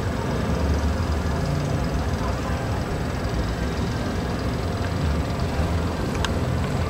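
Steady outdoor rumble, uneven and deep like wind buffeting the microphone, under a faint murmur of a crowd of people. A single short click about six seconds in.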